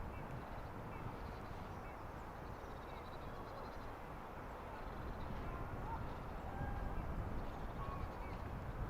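Steady wind rumbling on the microphone, a little stronger in the second half, with a few faint short chirps above it.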